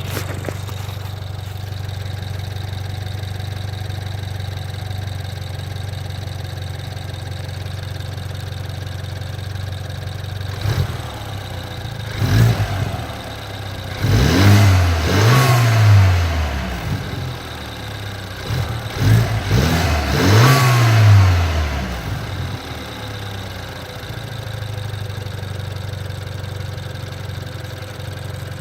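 BMW 428i's 2.0-litre turbo four-cylinder engine idling with a weird clicking that the owner cannot identify. It is blipped briefly twice about halfway in, then revved twice for a couple of seconds each, the pitch rising and falling back to idle.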